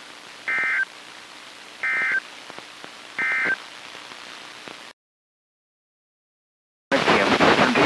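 Emergency Alert System end-of-message signal: three short bursts of warbling digital SAME data tones, about 1.4 s apart, over faint radio hiss and a low hum. The sound then cuts to dead silence, and a loud rushing noise starts near the end.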